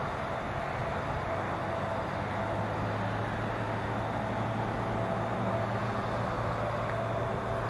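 Steady outdoor background noise, with a faint low hum coming in about two seconds in.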